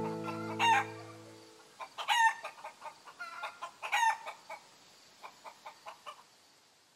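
Chickens clucking and calling: three louder calls, then a run of short, quieter clucks. An acoustic guitar chord dies away during the first second and a half.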